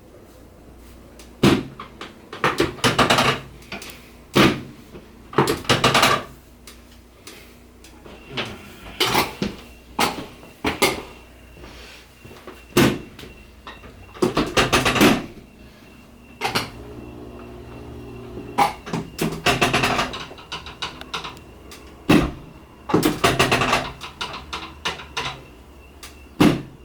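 An irregular series of short knocks, clunks and rustles: handling noise on a chiropractic treatment table as the patient is positioned and adjusted.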